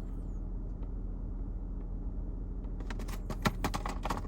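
A battery post cleaner being handled, a quick run of light clicks and rattles for about a second and a half near the end. A steady low hum runs underneath throughout.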